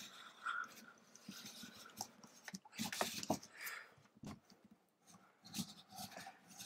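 Faint handling noises: irregular rubbing and rustling with a few light clicks and taps as the device and its plastic packaging are moved about.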